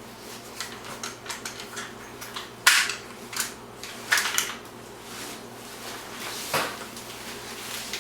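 Plastic and metal clicks and clacks of a Joovy Scooter stroller's fold locks and frame as it is unlocked and folded: a run of small clicks, with sharp clacks about three seconds in, around four seconds, and again past six and a half seconds.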